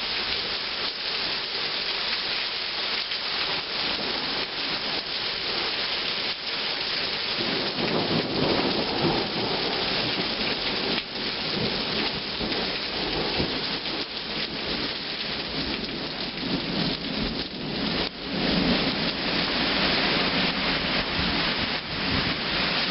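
Heavy rain pouring down and splashing on surfaces in a violent storm, with many fine drop ticks. From about eight seconds in, a low rumble of thunder runs underneath the rain.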